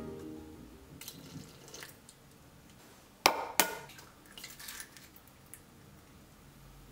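Milk trickling from a cup into a bread machine pan of flour, then an egg rapped twice sharply on the pan's rim, about a third of a second apart, and broken open.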